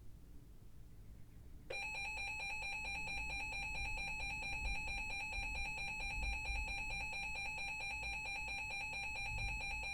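Emergency Alert System alert tone: a loud, rapidly warbling two-pitch tone that starts about two seconds in and holds steady, over a faint low hum before it.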